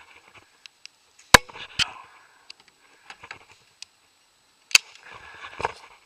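Two sharp airsoft gun shots about three and a half seconds apart, with lighter clicks and rustling between them.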